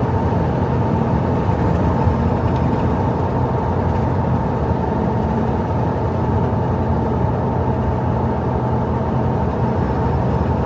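Steady road noise of a car driving at highway speed, heard from inside the cabin: an even drone of engine and tyres on the road.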